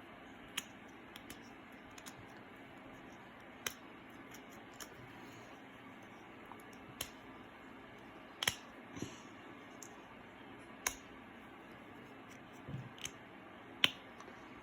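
Scattered sharp clicks and taps, about one every two to three seconds, from small objects being handled, over a faint steady hiss.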